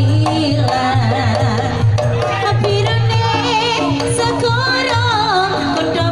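Live jaranan ensemble playing: Javanese kendang hand drums and a steady low pulse under a high wavering melody with fast vibrato.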